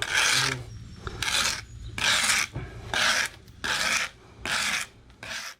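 A hand tool scraping over fresh, wet concrete in repeated strokes, a little more than one a second, as the slab is worked before it sets.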